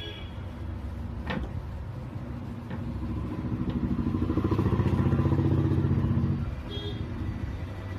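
Motorcycle engine running, swelling louder for about three seconds midway and then dropping away, over a steady low hum; one sharp metallic click about a second in.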